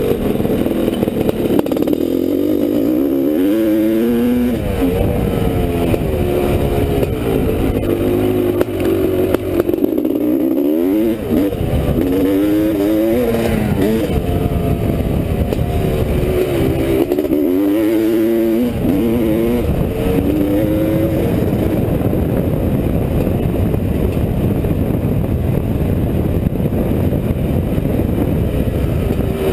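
1985 Honda CR500's two-stroke single-cylinder engine under load while riding, its pitch climbing and dropping back again and again as the throttle is opened and closed.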